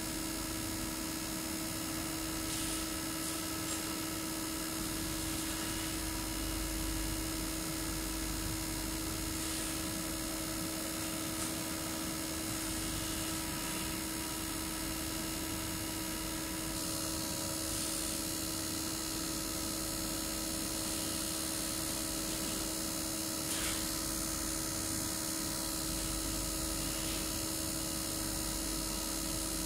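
Common-rail injector test bench running steadily, its high-pressure pump turning at 300 rpm and holding 35 MPa while a Denso injector is test-fired. The sound is a constant machine hum with a steady tone and a hiss above it, and the hiss grows stronger about halfway through.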